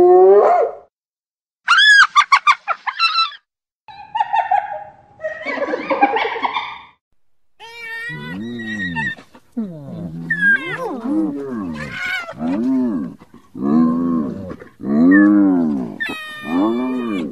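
Spotted hyenas calling: a rising whoop, then a quick high-pitched giggling run, rougher growling calls, and from about eight seconds in a string of short rising-and-falling calls, about one a second.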